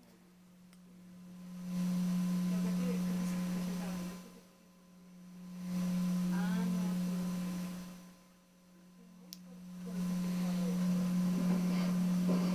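A steady low hum-like electronic tone with faint overtones, swelling up, holding and fading away about every four seconds, three times over.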